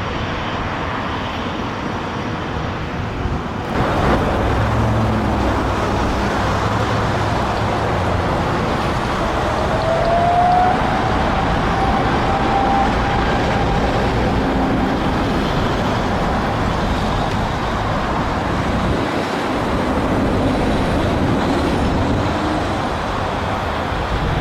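GE90 turbofan engines of a Boeing 777-200LR running at takeoff thrust, a steady loud noise that steps up in level about four seconds in.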